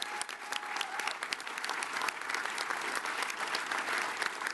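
Crowd applauding: a dense patter of many hands clapping, growing a little stronger partway through.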